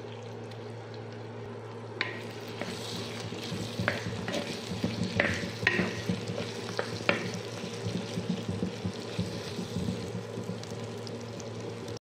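Tomatoes, shallots and whole spices frying in oil in a pan, with a spatula scraping and knocking against the pan as they are stirred from about two seconds in.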